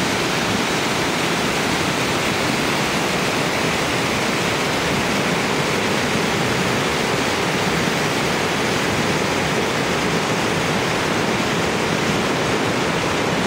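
Small waterfall on a mountain river: a steady, even rush of falling water.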